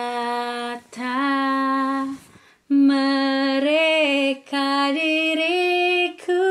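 A woman singing unaccompanied in long held notes, five phrases with short breaths between them, the pitch stepping higher from phrase to phrase.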